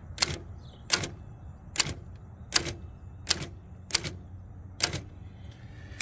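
Imperial Model 50 manual typewriter being typed slowly, one key at a time: about seven sharp typebar strikes on the platen, a little under a second apart.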